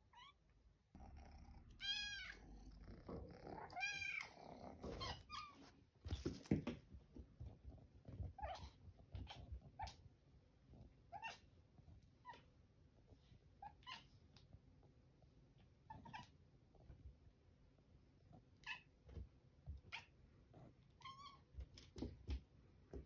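Domestic cat meowing: two long, loud meows that rise and fall in pitch about two seconds apart, then a string of short, quieter meows every second or two. A few dull knocks come about six seconds in.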